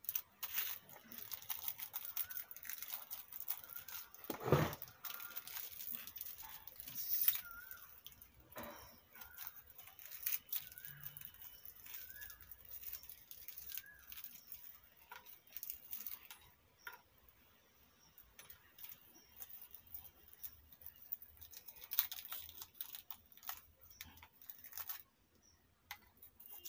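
Small plastic packets crinkling and being torn open by hand, with light clicks of small metal parts handled on a wooden bench, and one louder knock about four and a half seconds in.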